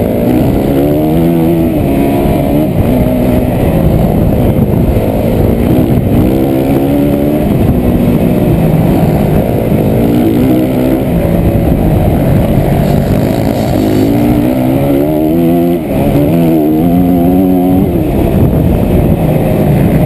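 Motocross bike engine heard from the rider's helmet, revving up in repeated rising sweeps and dropping back at each gear change or corner. Heavy wind rush on the microphone underneath.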